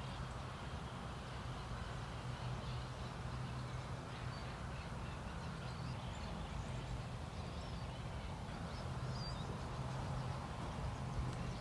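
Outdoor ambience: faint, scattered bird chirps over a steady low hum.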